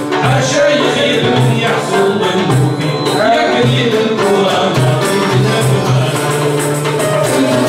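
Live chaâbi-style ensemble playing: banjos and a mandole plucked and strummed in a steady, quick rhythm, with hand percussion keeping the beat.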